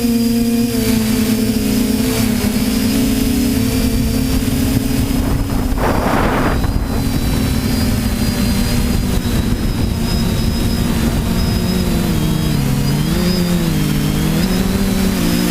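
TBS Discovery quadcopter's electric motors and propellers humming in flight, with wind hiss on the microphone. There is a short rush of hiss about six seconds in. From about twelve seconds the hum's pitch dips and wavers.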